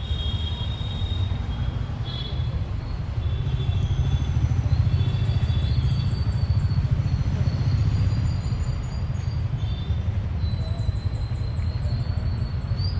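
Outdoor park ambience: a steady low rumble with thin, high bird calls coming and going over it.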